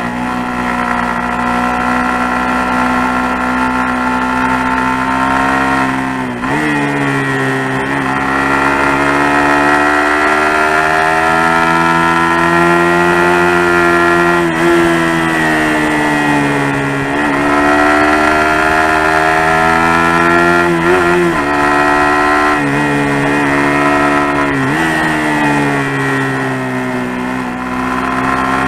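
Suzuki GSX-R150's single-cylinder four-stroke engine under way through mountain bends, its pitch rising and falling with the throttle. Several quick gear changes break the pitch, about a third of the way in and again later.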